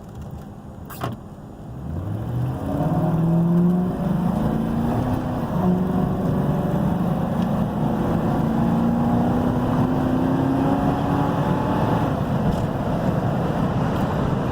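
A 4.6-litre V8 car engine accelerating: after a click about a second in, the engine note climbs from about two seconds, drops back at an upshift around five seconds, then rises slowly again before settling into steady running with road noise.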